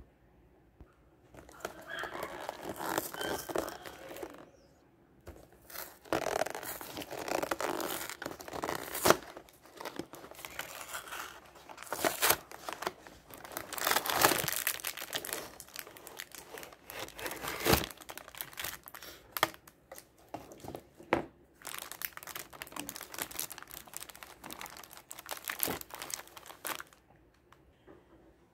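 Gingerbread biscuit packaging being handled and opened close to the microphone: crinkling and rustling in irregular spells with short pauses and a few sharp crackles.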